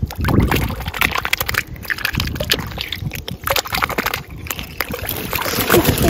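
Water splashing and sloshing in a small plastic wading pool as a hand and a duck stir it, with many quick irregular splashes.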